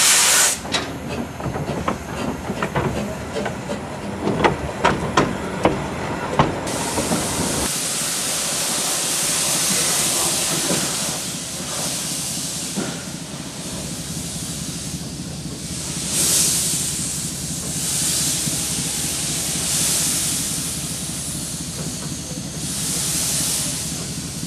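Narrow-gauge steam locomotive moving off slowly, steam hissing from its cylinders, with a run of sharp clanks and clicks over the first several seconds. Later the hiss swells and fades in slow pulses about every two seconds as the engine works slowly along.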